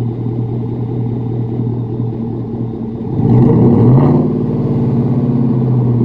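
A 2018 Chevy Silverado 1500's engine idling, then revved about three seconds in. The pitch rises quickly, holds at a higher speed for a couple of seconds and falls back near the end.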